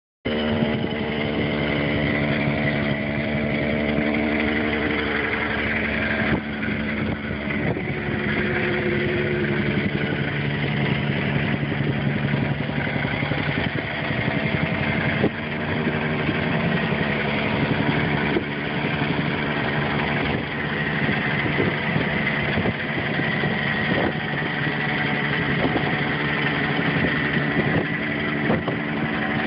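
Small engine of a tamping rammer (jumping-jack compactor) running steadily at speed, with rapid pounding strokes as it compacts backfill.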